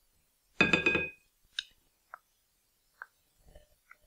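A small ceramic ramekin and a wooden spoon clinking against a mixing bowl as softened butter is scraped in. There is one loud, ringing clink about half a second in, then a few light taps.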